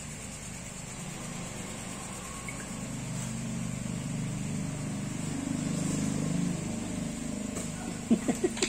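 Low hum of a motor vehicle engine running, swelling about three seconds in and easing off again. Four quick sharp sounds in a row near the end.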